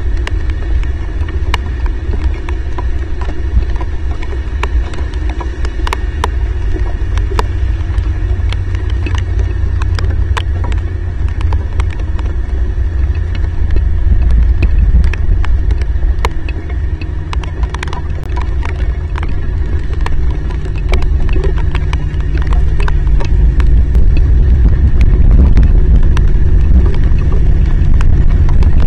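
Heavy rain and wind on an outdoor camera microphone: a loud low rumble with scattered ticks of raindrops striking the camera. It grows louder about halfway through and again near the end.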